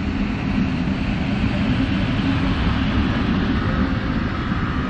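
PKP Intercity EP07 electric locomotive moving along the tracks on a shunting run: a steady rumble with a low hum.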